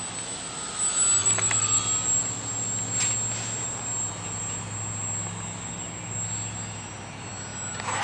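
Flatout Cap580 R/C model plane's motor running steadily as it flies past, a low hum with a thin high whine over it, and a short click about three seconds in.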